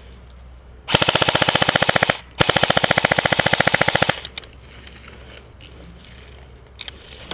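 JG M4 S-System electric airsoft rifle firing on full auto: two long, rapid bursts separated by a short pause, the second slightly longer.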